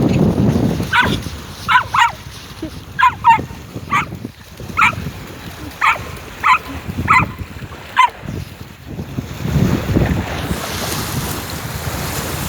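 A dog barking in short, high yaps, about ten of them over six seconds, while playing. Toward the end the barking stops and wind buffets the microphone.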